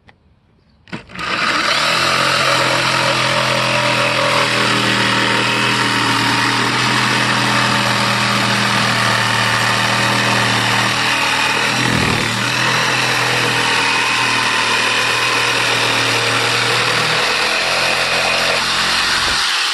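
An electric power tool switched on and running steadily for about eighteen seconds, with a brief dip partway through, before it cuts off.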